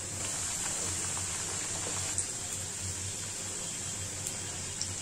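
Discs of dough deep-frying in an iron kadhai, a steady sizzle of oil that has got a bit too hot. A few light clicks of a slotted spoon against the pan come in the second half.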